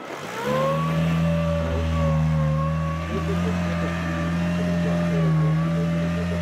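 Rock crawler buggy's engine revving hard under load as it climbs a steep rock face, rising about half a second in and then holding at high revs with small swells.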